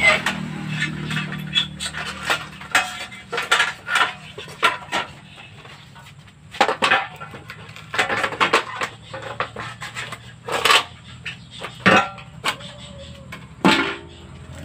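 Irregular metallic clanks and clinks of aluminum sliding-window profiles being handled and worked at a hand-lever punch press, in uneven sharp knocks.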